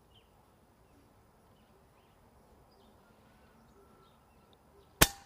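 Faint bird chirps over quiet outdoor background, then about five seconds in a single sharp shot from an AirMaks KRAiT Compact .22 PCP air rifle fired without a silencer.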